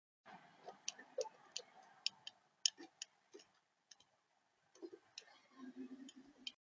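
Irregular sharp clicks and taps on a bird feeder, from a visitor feeding on the seed close to the feeder camera's microphone, with a few duller knocks and a brief low rustle near the end.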